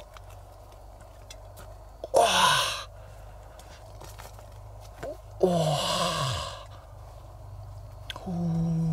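A man's breathy wordless exclamations: two sighing calls that fall in pitch, about two and five and a half seconds in, then a held low hum near the end.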